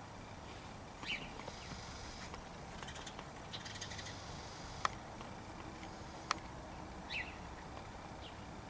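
Birds calling: two short, louder falling calls, one about a second in and one near the end, with fainter calls between them. Two sharp clicks come near the middle.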